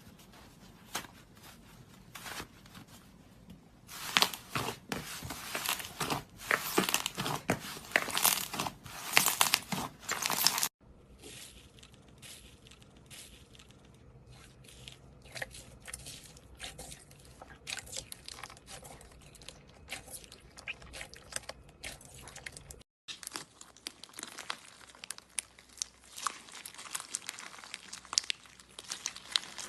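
Slime being squeezed and poked by hand, giving dense crackling clicks and pops. The sound is loudest for several seconds in the first third, and the crackling changes character twice.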